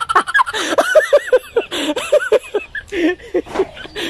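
Chickens clucking: a quick run of short calls that rise and fall in pitch, several a second.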